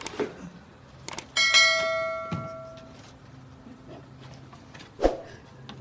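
A subscribe-button notification sound effect: a couple of short clicks, then a single bell ding about a second and a half in that rings out and fades over about a second and a half. A short thump comes near the end.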